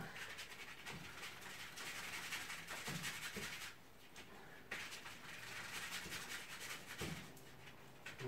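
Paintbrush bristles being scrubbed and worked in turps inside a plastic paint kettle to loosen softened gloss paint: a faint, scratchy rubbing in bouts, pausing briefly about four seconds in and again near the end.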